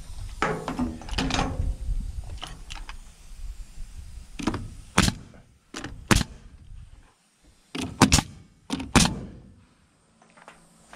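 DeWalt pneumatic coil nailer driving nails into wooden trim boards: about five sharp shots, some in close pairs, from about four seconds in to about nine seconds in.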